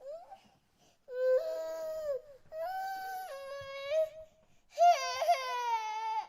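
Baby crying: a short whimper, then three drawn-out wailing cries of about a second and a half each, with brief catches of breath between them. The last cry is the loudest.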